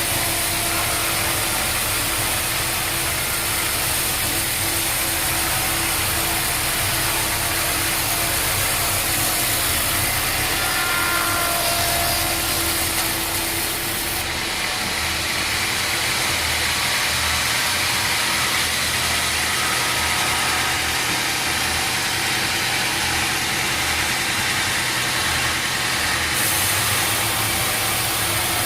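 Sawmill machinery running steadily: a constant motor hum under a broad mechanical noise, with the higher part of the noise changing about halfway through and returning near the end.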